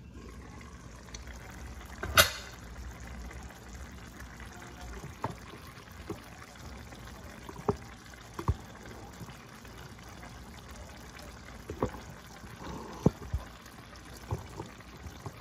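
A pot of goat and vegetable stew simmering, bubbling with scattered soft pops. A single sharp knock about two seconds in is the loudest sound, from the pot lid being handled.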